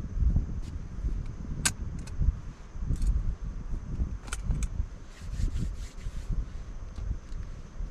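Wind buffeting the microphone in a gusty low rumble, with a few sharp clinks of a spoon against a metal camping bowl.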